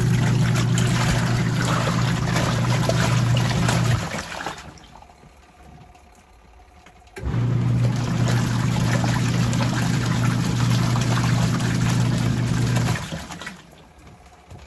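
Costway twin-tub portable washer's wash tub running with a load of laundry: the motor hums steadily while the water churns and sloshes. It runs about four seconds, pauses for about three, then runs again for about six seconds and stops near the end, the wash pulsator turning in alternate directions.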